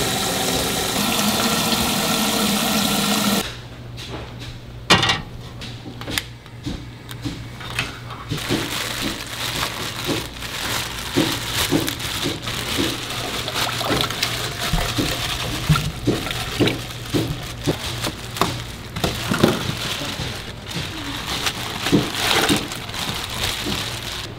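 Water running from a tap into a container, steady for about three and a half seconds, then cut off suddenly. After that come scattered clinks and knocks of kitchen utensils and dishes over a low steady hum.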